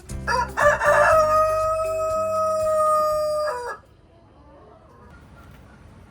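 A rooster crowing once: a single long crow of about three seconds that ends in a long held note and then stops sharply.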